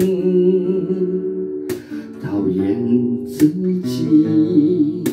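A man singing a Mandarin pop ballad to his own strummed steel-string acoustic guitar. He holds one long wavering note at the start, then sings on over chord strums.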